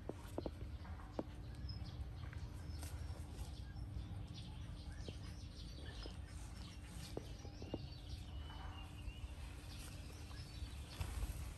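Quiet outdoor background: a steady low rumble with scattered light clicks and brief high chirps.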